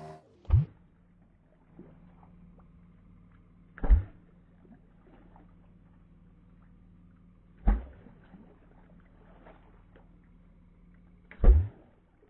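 Four dull, low thumps at roughly even spacing, about four seconds apart, over a faint steady low hum.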